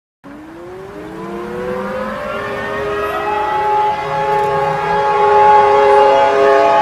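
Civil defense warning siren winding up from silence, several tones rising in pitch together over about three seconds. It settles into a steady chord that keeps getting louder.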